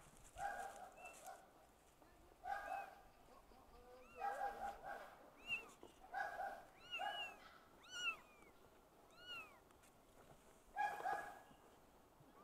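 Kittens mewing repeatedly: about a dozen short, high-pitched calls, some of them sliding up and then down in pitch.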